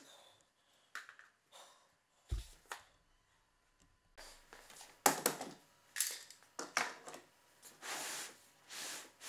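Quiet workshop handling of wooden parts: scattered light clicks and knocks, one dull thump about two seconds in, then scraping and rustling. Near the end, two short sliding sounds come from the MDF crosscut sled being pushed across the table-saw top.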